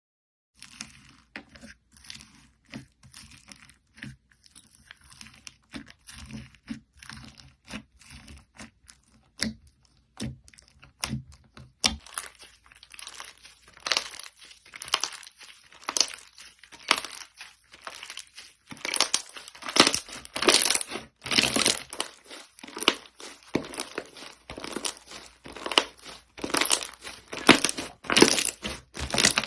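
Slime being squeezed, stretched and pressed by hand: a rapid run of sticky crackles, pops and squelches, sparse and soft at first, then denser and louder from about twelve seconds in.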